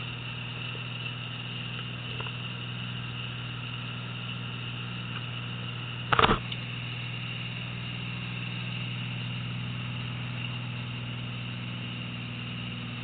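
Fishing boat's engine running steadily, a constant low drone with a faint high whine over it. About six seconds in there is a short loud burst.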